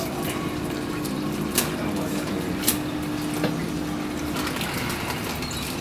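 Water moving and splashing in an aquarium over a low steady hum like a pump, with a few light clicks.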